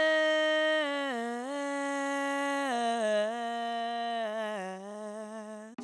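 A voice holding one long, drawn-out announcer's call on a single vowel, stepping down in pitch several times and fading near the end: the stretched-out name between "Captain" and "Hooter" in a ring-announcer style introduction.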